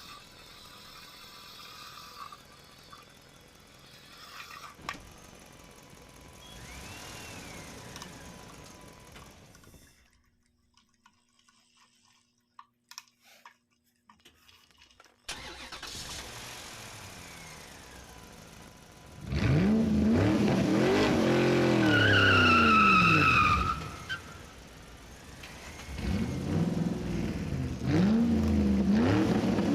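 A vehicle engine revving up and down, loud, in two bursts in the last third, after a quieter noisy stretch and a short near-silent gap with a few clicks.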